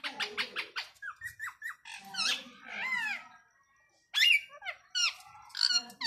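Indian ringneck parakeet calling in a quick string of high, squeaky chirps and whistles that slide up and down in pitch, broken by short pauses. The loudest bursts come about four seconds in and again near the end.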